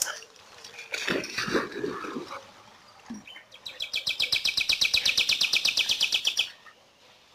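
A bird singing a rapid, even trill of high notes, about a dozen a second, lasting some three seconds in the second half. Before it there is softer rustling in the brush.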